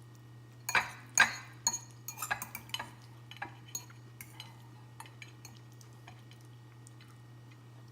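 Cutlery clinking and tapping against a dish while the last of a salad is eaten: a few sharp clinks about a second in, then lighter taps that thin out past the middle. A steady low hum runs underneath.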